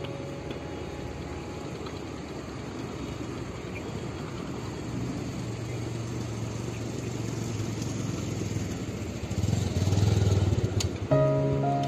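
A motor vehicle engine running with traffic-like background noise. It grows louder toward the end as it comes close, with a short click just before music starts near the end.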